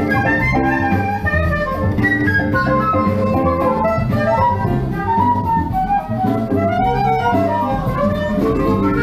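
Recorded instrumental music played back over Lipinski Sound L707 monitor loudspeakers and picked up in the room: melodic lines over a continuous bass.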